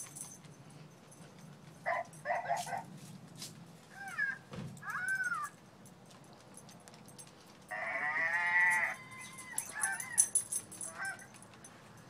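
A toy ball that plays recorded farm-animal calls, set off as the dogs nudge it: several short calls, then a longer wavering call about eight seconds in, the loudest, then a few more short ones.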